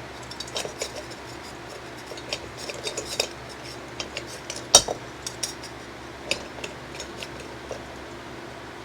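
Small metal parts and hand tools clicking and clinking irregularly while a fan switch assembly is worked on by hand, with one sharper click about halfway through.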